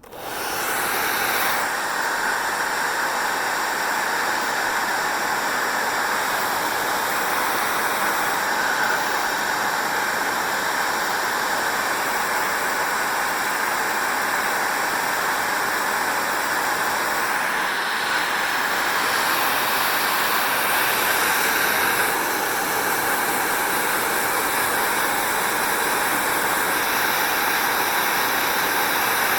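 Hair dryer switching on and blowing steadily with a loud, even rushing hiss. The upper part of the hiss shifts a few times along the way.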